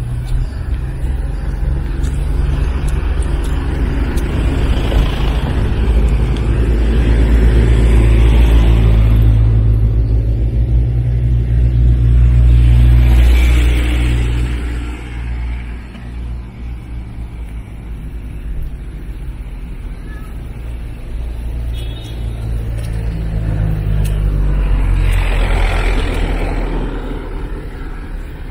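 Road traffic: motor vehicles passing close by one after another, each swelling and fading over a few seconds over a constant deep rumble.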